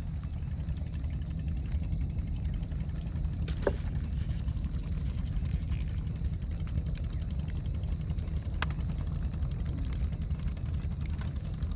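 A steady low rumble, with a few faint clicks while the wet fishing net is handled.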